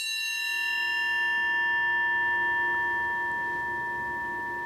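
A discarded metal motorcycle disc, played as a bell, ringing on after a single strike on its smaller angled region: several steady metallic tones at once that fade slowly, with a long sustain.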